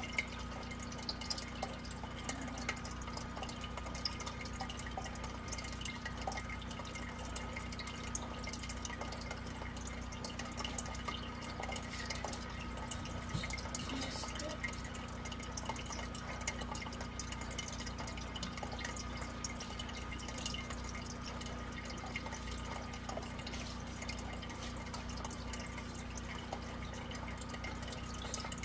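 Water trickling and dripping in a small aquarium, a steady run of little splashes and drips, with a faint steady hum underneath.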